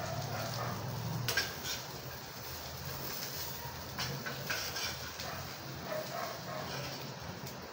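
Light knocks and clatter of kitchenware being handled at a gas stove, over a low steady hum.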